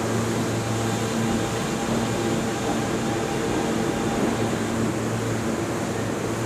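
New York City subway train on the BMT Broadway Line pulling away into the tunnel: a steady rumble of wheels on rail with a low motor hum, holding at an even level.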